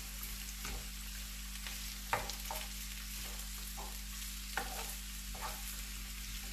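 Parboiled carrot slices sautéing in olive oil and garlic in a frying pan, sizzling faintly while a metal spoon stirs them, scraping and clinking against the pan every second or so, the sharpest clink about two seconds in.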